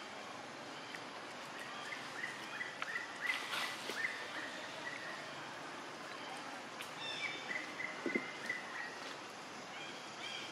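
Forest ambience: a steady background hiss with two bouts of short, repeated high-pitched chirping calls from an animal, and a brief rustle about three and a half seconds in.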